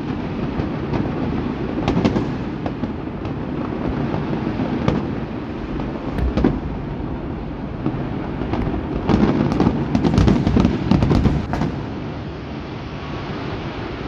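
Aerial fireworks shells bursting: a continuous rumble of booms with many sharp cracks and pops on top, thickest in a rapid run of reports about nine to eleven seconds in.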